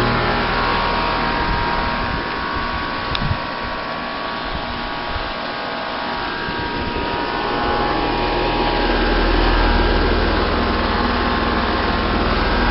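Outdoor unit of a Bryant Evolution two-stage heat pump running: a steady whirring hum with several steady tones over fan noise, the low rumble growing stronger in the second half. A brief knock about three seconds in.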